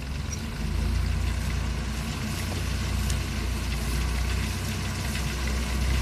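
Engine of a small self-propelled wheat reaper running steadily with a low hum, getting louder about a second in and growing slowly as the machine comes closer.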